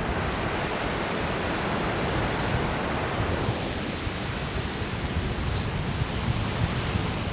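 Lake Michigan surf washing on a sandy shore, mixed with wind rumbling on the microphone. The hiss of the surf eases about halfway through while the low wind rumble goes on.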